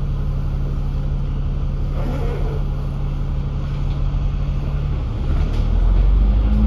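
Dennis Enviro500 MMC double-decker bus's engine running steadily, heard from inside the bus. About five seconds in it grows louder and deeper as the bus picks up power.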